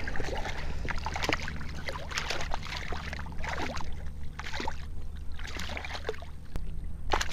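A small striped bass thrashing and splashing at the water's surface as it is drawn in and grabbed by hand: a run of short, irregular splashes over a steady low rumble.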